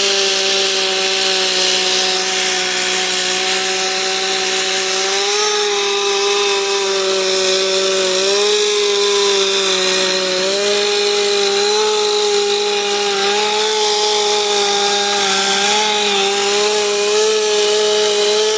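Chainsaw running at high revs while carving wood, held near full throttle, with the engine note dipping slightly a few times as the bar bites in.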